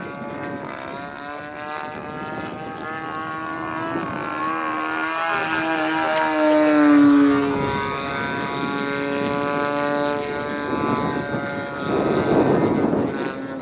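The 30cc petrol engine and propeller of a Seagull Edge 540 radio-controlled model plane in flight. The engine note wavers in pitch as it manoeuvres, grows loudest about halfway through while its pitch falls, and surges again near the end.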